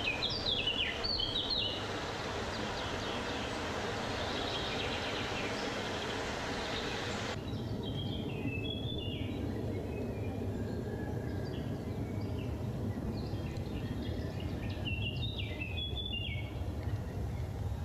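Wind blowing in the forest, a steady rushing, with small birds chirping in short phrases near the start, about eight seconds in and again around fifteen seconds in. The higher part of the hiss drops off abruptly about seven seconds in.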